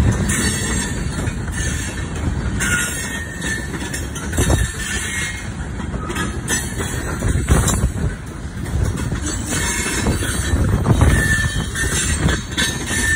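Freight train cars, mostly covered hoppers, rolling past with a steady rumble and irregular clatter of steel wheels over the rails, and brief high wheel squeals now and then.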